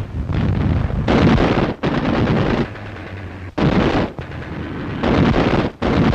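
Anti-aircraft guns firing at night in a series of heavy, booming shots about one to two seconds apart, each trailing off briefly.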